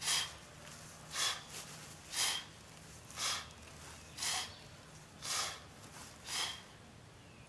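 A man breathing out sharply in rhythm with bodyweight squats, seven short breaths about a second apart.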